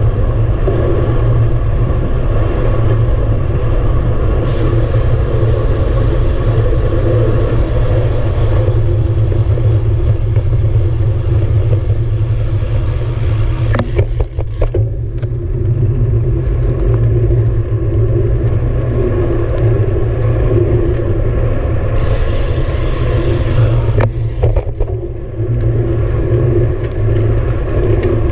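Wind buffeting the microphone of a handlebar-mounted action camera on a moving road bike: a loud, steady low rumble with tyre hiss on asphalt. A few short clicks come about halfway through and again near the end.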